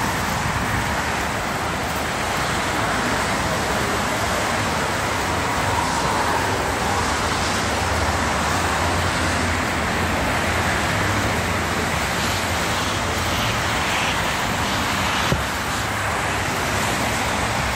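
Steady rush of expressway traffic, cars passing at speed on the road beside the tracks. There is a single sharp click near the end.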